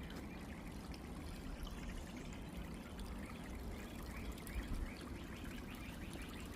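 Running water trickling and splashing steadily, like a small stream. A brief low bump near two-thirds of the way through.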